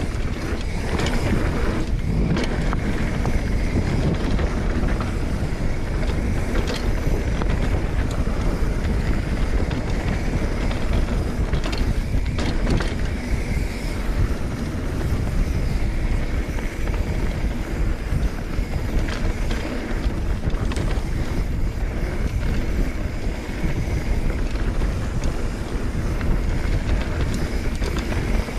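Wind buffeting the microphone of a camera on a mountain bike riding fast down a dirt singletrack, over a steady low rumble of the tyres, with scattered sharp clacks as the bike goes over bumps.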